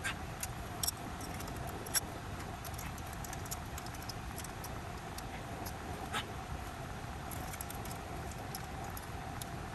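Scattered light metallic clicks and ticks as hands handle copper refrigerant tubing and fittings around an expansion valve inside an air handler, with sharper clicks about two seconds in and about six seconds in, over a steady low background hum.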